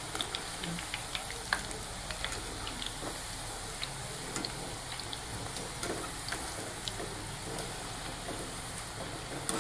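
Ragi murukku deep-frying in hot oil in a steel kadai: a steady sizzle peppered with small crackles as the pieces are turned with a metal slotted ladle. The sizzling is still going, the sign that the murukku is not yet done; it is lifted out once the sound dies down.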